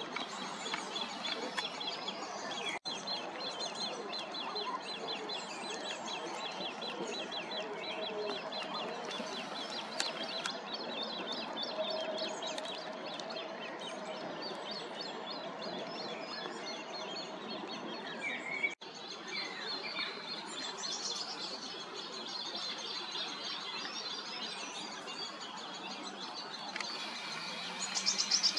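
Several birds chirping and singing over a steady background of outdoor noise, with a louder burst of rapid chirping near the end. The sound drops out for a moment twice.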